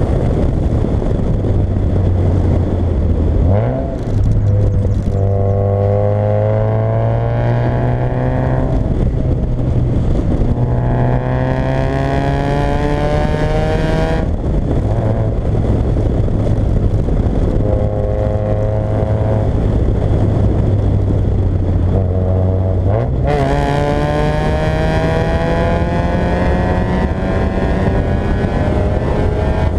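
Fiat Coupé 1.8 16v's four-cylinder engine pulling hard, revs climbing in long pulls that drop back at each gear change, with a stretch of steadier engine speed in the middle before it climbs again near the end.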